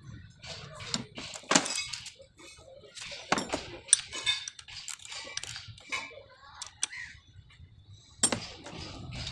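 Hand tools and metal engine parts clinking and clanking as a socket and wrench are picked up and handled: a run of sharp metallic knocks, several of them louder.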